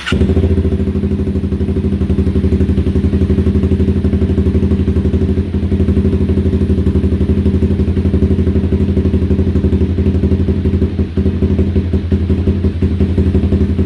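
Honda CBR300R's single-cylinder engine running steadily at idle, a bike with a stalling problem that is struggling to stay running on fresh fuel after its stale gas was drained.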